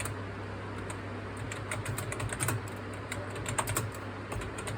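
Typing on a Cosmic Byte Dragonfly RGB membrane keyboard: quick, irregular key presses, going through the letters A to Z to test every key.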